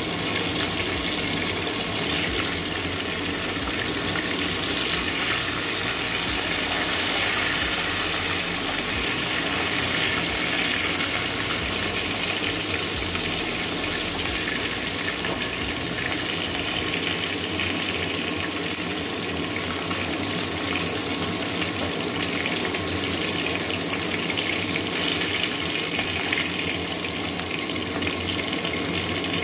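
Bata fish pieces frying in hot mustard oil in a kadai: a steady sizzle.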